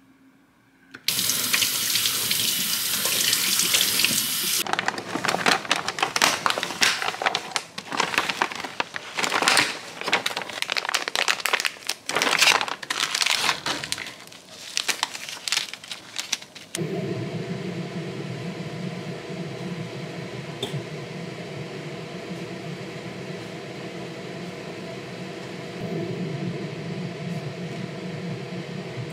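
A few seconds of running water. Then the plastic packet of a tteokbokki meal kit crinkles and rustles as it is torn open and handled. From about two-thirds of the way through, a gas stove burner gives a steady low hum.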